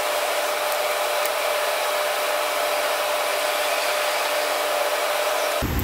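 Carbon-arc lead-welding rig running: a steady hiss with a steady hum tone as the glowing carbon rod heats the molten lead on the battery post. It cuts off abruptly near the end.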